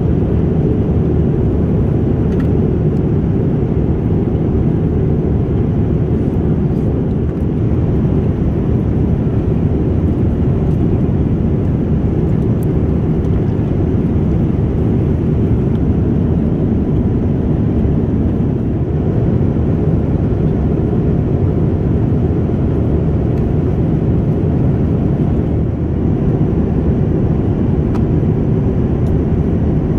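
Steady low rumble of engine and airflow noise inside the cabin of a Boeing 787-9 airliner, with no marked change in level.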